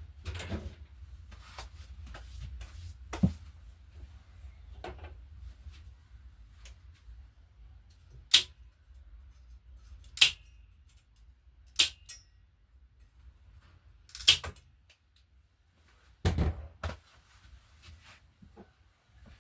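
Sharp clinks and knocks of tools and bike parts being handled during a strip-down, about six of them a couple of seconds apart, one ringing briefly.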